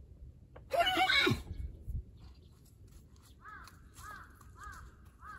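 A thoroughbred stallion whinnies once, loud and short, about a second in. The call quavers and drops in pitch at the end.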